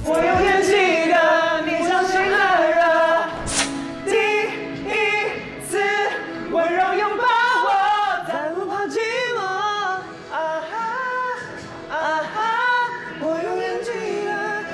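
A pop song: a solo voice singing a melody with wavering pitch over backing music, with a brief crash about three and a half seconds in.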